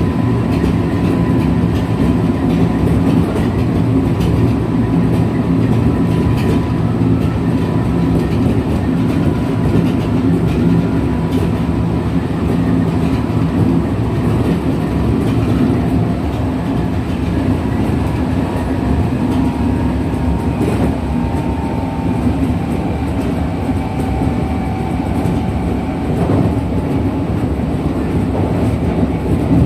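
Kintetsu 1233 series electric train (set VE46, a car noted for an unusual noise compared with a normal 1233 series) running at speed, heard from inside: a steady rumble of wheels on rail with a faint whine that drops slightly in pitch about two-thirds of the way through.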